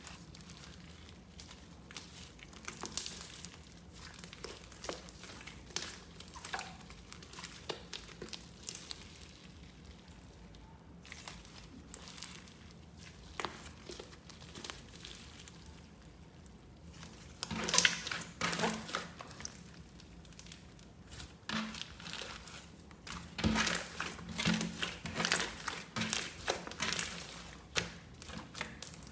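Slime being pressed, poked and stretched by hand, giving off irregular crackling and popping clicks, with louder, denser runs of clicks partway through and again toward the end.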